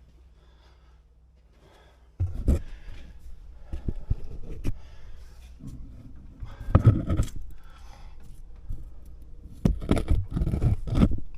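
Heavy metal parts scraping and clunking as a truck's exhaust manifold is worked loose and pulled out of the engine bay. The knocks come in irregular clusters, starting about two seconds in.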